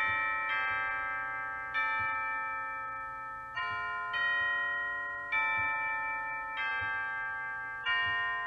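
A slow melody struck on tuned bells: about seven notes, each ringing on and fading under the next.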